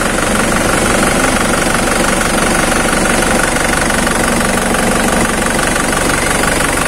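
Isuzu Panther's four-cylinder diesel engine idling steadily with a regular diesel clatter.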